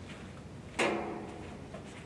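Hardcover book set onto a metal library shelf: one knock about a second in, with a short ringing decay.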